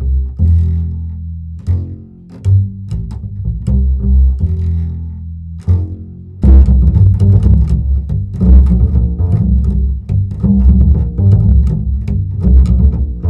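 Music led by a low, plucked double bass line with repeated notes, joined by fuller, busier accompaniment about six and a half seconds in.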